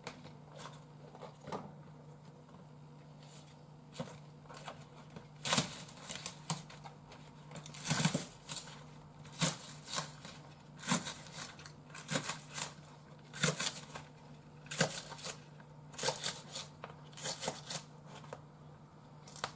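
Kitchen knife chopping the green tops of a Japanese long onion on a cutting board. Clusters of sharp knife strikes on the board come roughly every second and a half from about five seconds in, after a few lighter taps.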